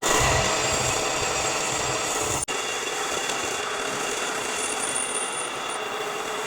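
Electric arc welding: the steady, harsh crackle of the arc, starting suddenly, with a momentary break about two and a half seconds in.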